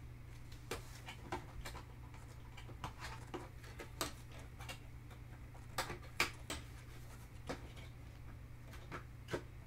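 Scattered light clicks and taps from a plastic runner rack being handled and latched together, irregular and a second or so apart, over a steady low hum.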